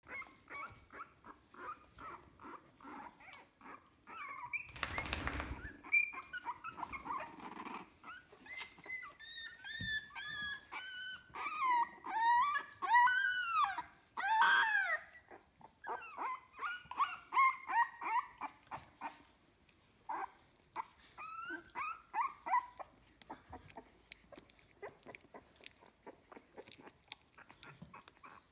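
Young Staffordshire Bull Terrier puppies, about two weeks old, squeaking and whimpering: many short, high cries that rise and fall in pitch, thickest and loudest about halfway through and dying away in the last few seconds. A brief rustle comes about five seconds in.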